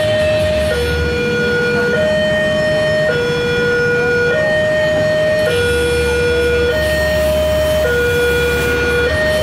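Railway level-crossing warning alarm sounding a loud two-tone electronic signal, a higher and a lower tone alternating about every 1.2 seconds, which signals that a train is approaching and the crossing is closed. Idling engines of the waiting vehicles rumble underneath, stronger from about halfway through.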